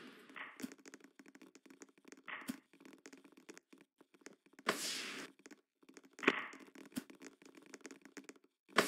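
A volleyball being hit several times, one to two seconds apart, as in a rally. Each hit is a sharp slap with a short echo, and the hardest hits come in the middle and near the end.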